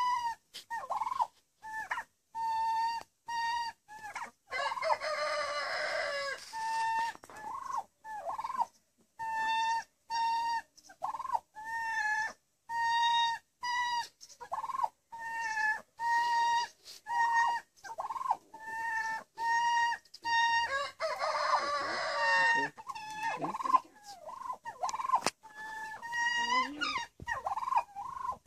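Turkeys calling: a steady series of short, even-pitched calls about once a second, broken twice by a longer warbling gobble, about five seconds in and again around twenty-one seconds.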